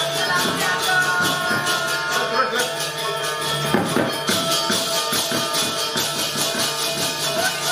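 Balinese gamelan orchestra playing: metal-keyed instruments ringing held tones over a fast, steady clatter of small cymbals.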